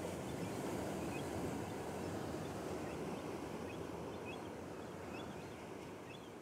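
Ocean surf breaking and washing in over a rocky shore: a steady rush that swells about a second in and slowly fades, with faint high chirps above it.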